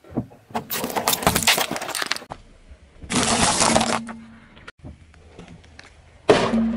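A car tyre crushing objects on asphalt in several separate takes. First comes a long run of crackling and crunching, then a shorter crunch about three seconds in, and near the end a sudden sharp crack, the loudest moment.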